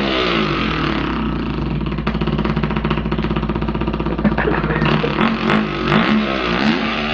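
A man's vocal impression of a two-stroke dirt bike, a continuous buzzing drone that revs up and down several times as if shifting through the gears.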